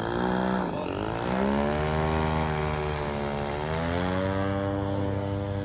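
Giant-scale model airplane's 52cc Turnigy two-stroke gas engine at takeoff power on the takeoff run. The pitch dips and comes back up twice, then holds steady and higher as the plane lifts off.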